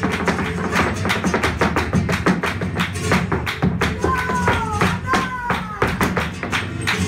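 Live flamenco: a dancer's rapid zapateado footwork, hard shoe heels and toes striking the wooden floor several times a second, over flamenco guitar.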